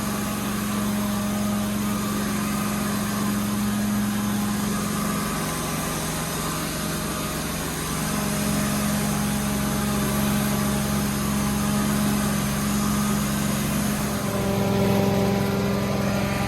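Carpet-cleaning extraction machine running steadily: a motor hum under a broad hiss of vacuum airflow. The hum shifts in pitch a few times.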